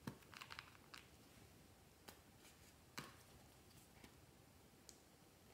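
Faint plastic clicks and taps from handling a small plastic squeeze bottle and twisting off its screw cap, a quick cluster about half a second in, then single clicks spaced about a second apart.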